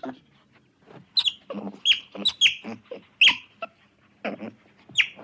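Animal calls: a rapid series of short, high-pitched calls, each dropping quickly in pitch, with brief pauses between them.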